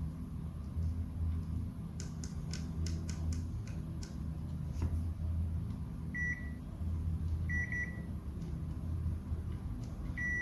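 Multimeter continuity beeper giving short high beeps as the probes find a connection: one about six seconds in, a quick double a second and a half later, and another near the end. A run of sharp clicks comes a couple of seconds in, over a steady low pulsing hum.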